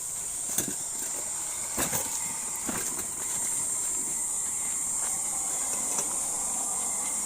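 A steady high-pitched hiss with a few short knocks in the first three seconds.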